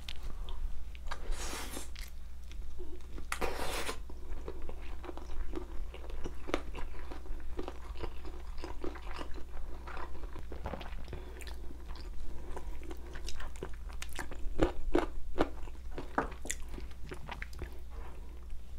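Close-up chewing and crunching of bone-in spicy chicken feet: two longer noisy stretches near the start, then many short clicking chews and bites. A steady low hum runs underneath.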